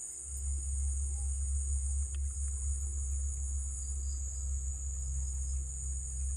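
Steady, high-pitched insect chorus, with a steady low rumble underneath.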